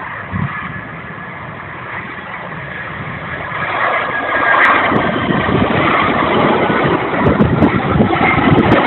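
Boeing 767-300F cargo jet on landing approach, its twin turbofan engines a steady rush with a faint high whine, growing louder from about three seconds in. Wind buffets the microphone.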